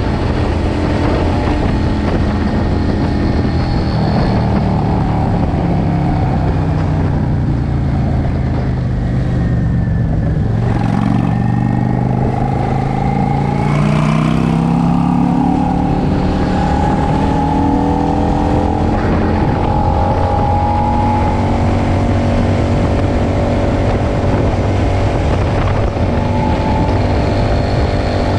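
Cruiser motorcycle engine heard from the rider's seat. It slows down with the pitch falling to a low rumble about ten seconds in, then pulls away, pitch rising for about ten seconds, and settles into a steady cruise.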